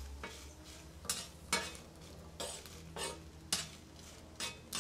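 Metal spoon scraping and tapping across a comal as dried chiles de árbol are turned while they toast, with the dry rustle of the chiles. Short, uneven strokes, roughly one every half second to a second.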